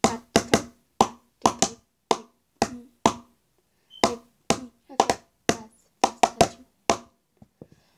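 Sharp taps, two or three a second, as sherbet powder is patted down in a small plastic bowl. They stop about seven seconds in, leaving a few faint ticks.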